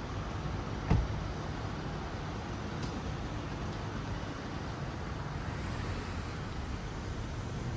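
Steady low rumble of city traffic, with a single sharp knock about a second in.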